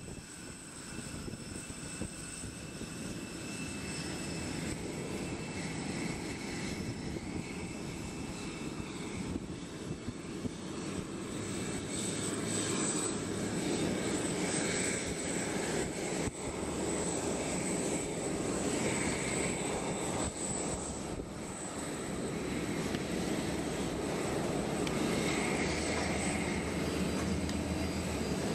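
Boeing 777-200LR's GE90 turbofans at taxi idle as the airliner rolls past, a steady rush with a thin high whine that grows gradually louder as the engine comes by.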